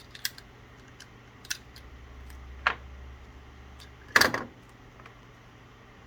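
Electrical tape being handled and wrapped around spliced Ethernet cables: a few light clicks, and a short rasp about four seconds in as tape is pulled from the roll.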